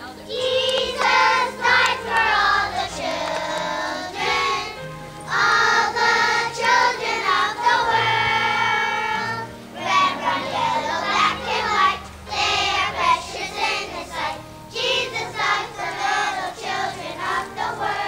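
Young children singing a song together as a group, in phrases with short breaks between them.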